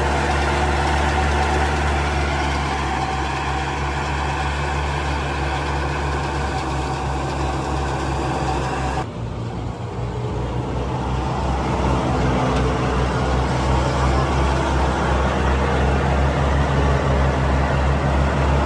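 Combine harvester's diesel engine and threshing machinery running steadily under load. About halfway through, the higher hiss cuts out abruptly and then builds back up over a few seconds while the low engine hum carries on.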